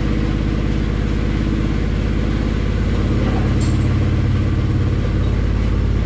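Hyundai Excel track car's four-cylinder engine idling steadily after its first start on the newly relocated battery and rewired starter and fuse-box feeds.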